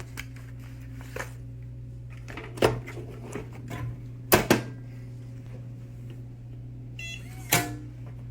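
Knocks and clicks from handling a small metal biometric pistol safe: one sharp knock about two and a half seconds in, two close together a little past the middle, and another near the end, with a short high beep just before the last knock. A steady low hum runs underneath.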